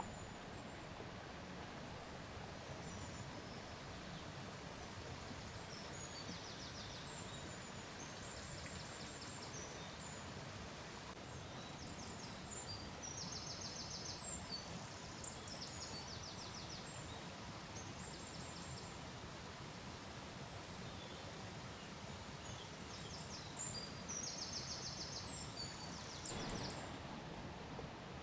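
Small birds singing: repeated short high chirps and quick trills over a steady outdoor hiss, with a brief rustle near the end.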